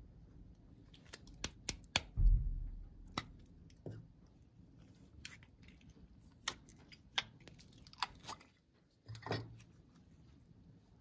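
Slime being squeezed and worked by hand: a scatter of sharp, irregular clicks and pops, with a heavier thump about two seconds in and a softer squelching thud near the end.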